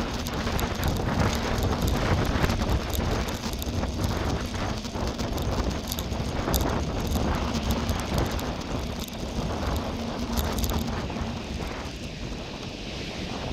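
Wind rushing over the microphone of a camera on a moving bicycle, with the rolling noise of tyres on a chip-surfaced path and scattered small clicks and rattles.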